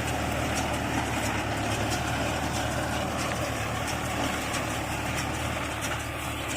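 Mahindra Yuvo 475 tractor's diesel engine running steadily with the baler in work, with faint sharp ticks over the drone.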